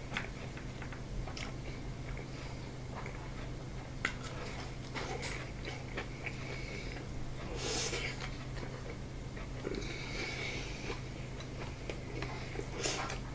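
A person chewing and biting into karaage (Japanese fried chicken) and rice, with scattered soft clicks and occasional breaths through the nose. Two louder noisy bursts come about eight seconds in and near the end, over a steady low hum.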